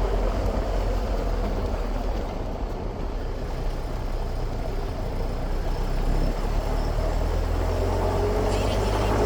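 A vehicle's steady low rumble, like a car running on the road.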